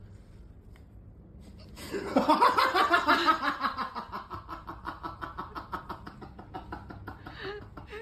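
A person laughing hard: a long run of rapid laugh pulses that starts about two seconds in and weakens toward the end.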